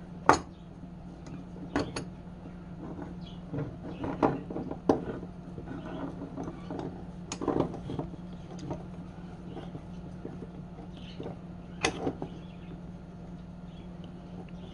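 Scattered sharp clicks and knocks, as of hard objects being handled and set down, about half a dozen loud ones, over a steady low hum.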